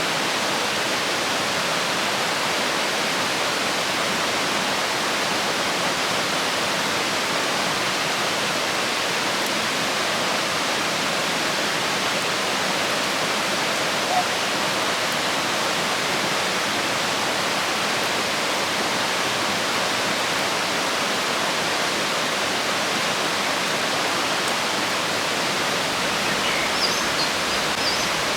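Fast-flowing river water rushing steadily, a constant even wash of water noise. A few faint high chirps come in near the end.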